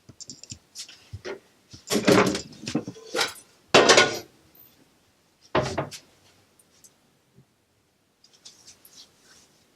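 Fork and plate clattering: cutlery knocking and scraping on a dish, with three louder clatters and scattered small clicks.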